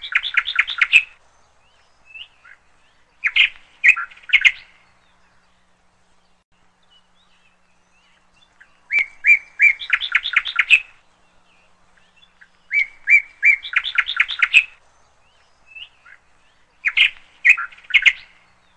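A bird singing a short phrase, a few separate notes then a quick run of notes, repeated about five times with pauses of a few seconds between.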